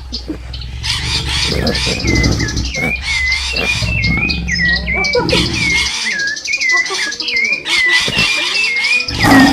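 A bird chirping, the same short call repeated about two or three times a second, over a low hum that stops about six seconds in. A brief loud noise comes near the end.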